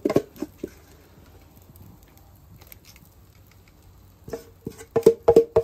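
Rapid clicking and tapping of a cookie scoop working pancake batter out of a stainless steel mixing bowl. There is a quick run of clicks at the start, a quiet stretch, then another fast run from about four seconds in.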